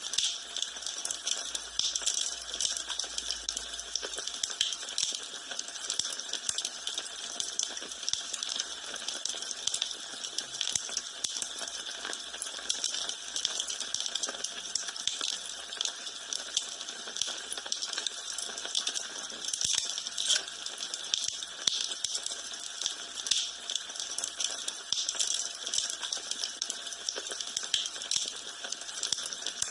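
Wood fire burning in a fireplace, crackling with a dense, irregular stream of small sharp pops and snaps over a steady hiss.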